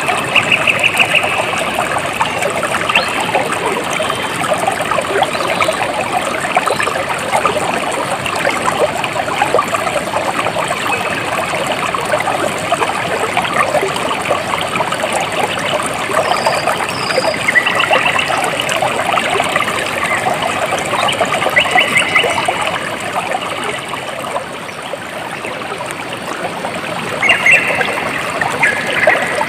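Water trickling and babbling steadily in a stream. Short rapid chirping trills rise above it several times.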